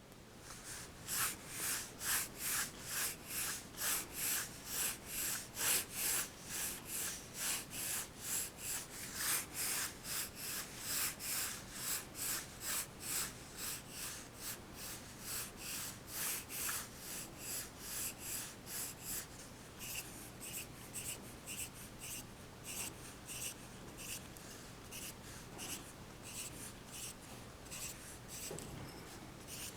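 Pencil sketching on paper: quick back-and-forth scratching strokes, about three a second, turning lighter and shorter about two-thirds of the way through.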